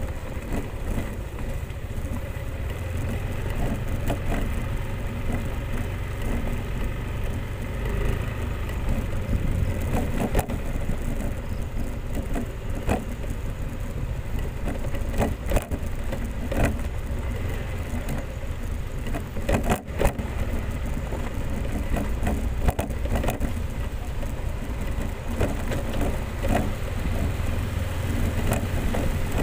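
Motorcycle engine running steadily while riding over a rough road, with frequent short knocks and rattles from the bumps.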